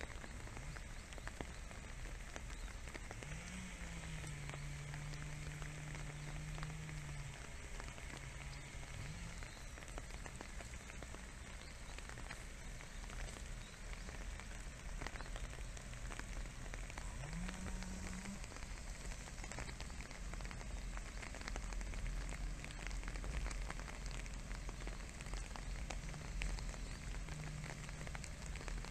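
Light rain pattering steadily on grass and leaves, many small drop ticks over an even hiss. A faint low hum rises and then holds a few times underneath.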